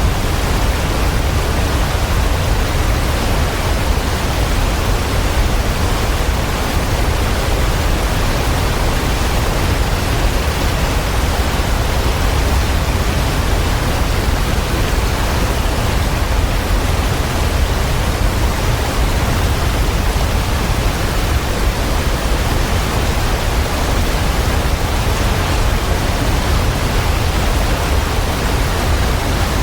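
Waterfall: a steady, loud rush of falling water with a deep low rumble and no breaks.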